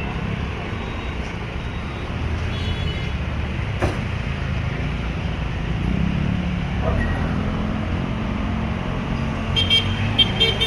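Road traffic: a steady rumble of engines and tyres, with a sharp click a little under four seconds in and a quick series of short horn beeps near the end.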